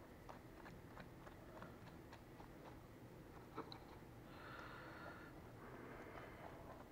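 Near silence: a silicone pastry brush dabbing egg wash onto a raw puff pastry pie lid, making faint light ticks about two or three times a second. A brief soft hiss comes a little past the middle.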